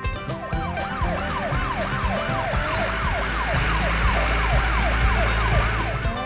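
Toy police truck's electronic siren sounding a fast yelp, its pitch rising and falling about two and a half times a second, stopping near the end. A low steady rumble joins it about halfway through.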